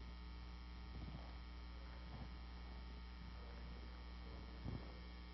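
Steady electrical mains hum with a few faint, soft knocks, the clearest one near the end.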